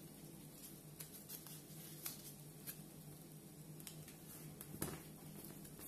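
Faint rustles and soft taps of origami paper being folded and pressed flat by hand against a table, a few scattered sounds over a low steady hum.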